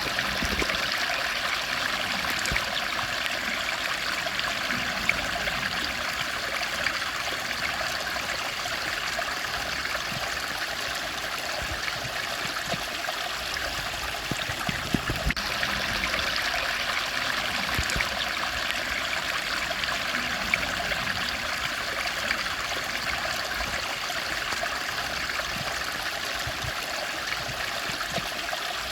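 Steady rush of running water from a stream, unbroken throughout.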